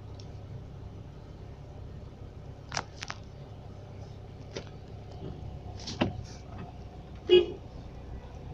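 Street ambience: a steady low traffic rumble, with a few scattered sharp knocks and clicks, the loudest a short ringing clack near the end.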